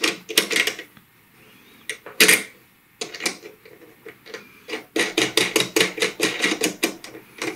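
Small metallic clicks and rattles of a copper ring terminal on a red cable being fitted over a power inverter's positive post while the red terminal knob is screwed down. One sharp click about two seconds in, then a quick run of clicks from about five seconds in.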